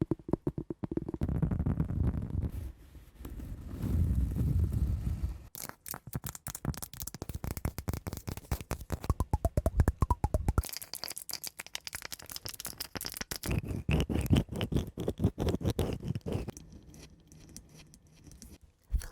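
Fast scratching and tapping on a cork pad and a wooden block, strokes in quick dense runs. The texture changes twice, about five and ten seconds in, and the strokes thin out a few seconds before the end.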